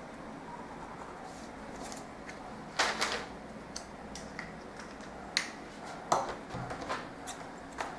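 Short clatters and knocks of a ruler and paper pattern pieces being handled on a table, the loudest about three seconds in, followed by several lighter knocks.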